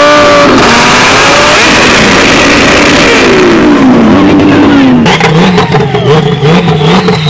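Tuned high-performance car engines revving hard and loud, their pitch sweeping up and down. From about five seconds in, a wavering engine note comes with a rapid run of sharp cracks.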